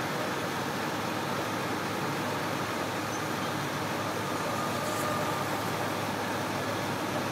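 Steady drone of diesel engines from an asphalt milling machine and its trucks working an interstate, mixed with road traffic noise, with a steady low hum throughout.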